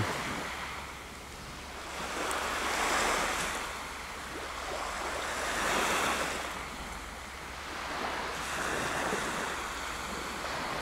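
Small sea waves breaking and washing up the beach, the hiss swelling and fading about every three seconds.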